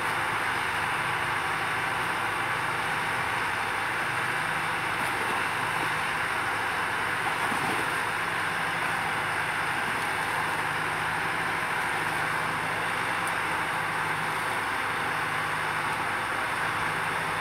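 Steady running noise from a boat travel lift's engine and hydraulics as it lowers a fishing boat in its slings into the sea.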